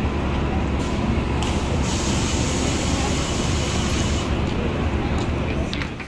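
City street traffic: a steady low rumble of passing vehicles, with a hiss of air from about two to four seconds in.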